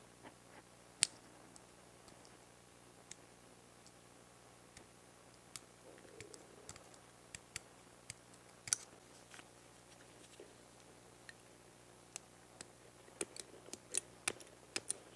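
Faint, scattered small clicks and scrapes of a hobby knife blade cutting and trimming a plastic scale-model part, with a quicker run of clicks near the end.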